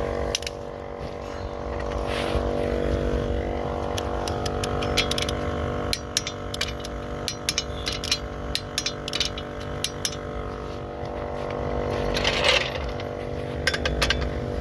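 Portable air compressor running with a steady hum, with scattered sharp metallic clicks from tools and a short burst of hissing about twelve seconds in.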